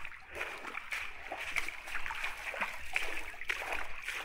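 Footsteps wading through shallow creek water, a run of irregular splashes and sloshes as feet lift and drop.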